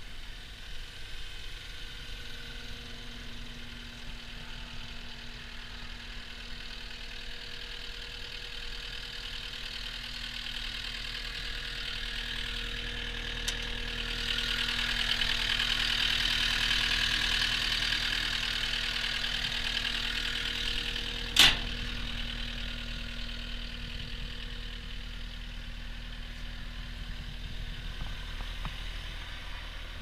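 Caterpillar 242D skid steer loader's diesel engine idling steadily, louder in the middle while the engine compartment stands open. A small click comes about 13 seconds in and a sharp clack about 21 seconds in.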